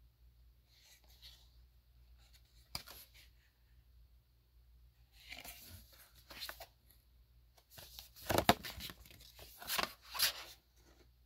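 Cardstock accordion postcard folder being handled, folded and opened out: scattered brief paper rustles and scrapes, with one sharp click about three seconds in and the loudest handling near the end.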